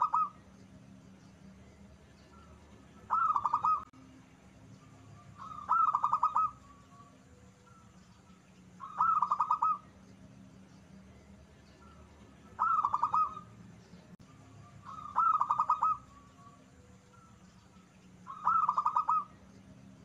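Zebra dove (perkutut) cooing: a short burst of rapid, rolling coo notes, repeated seven times about every three seconds.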